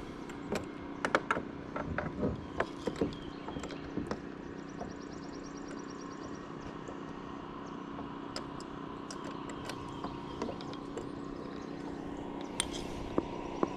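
Scattered light clicks and knocks of a crappie and tackle being handled in a plastic kayak as the fish is put on a stringer, heard over a steady low hum. The knocks come in the first few seconds.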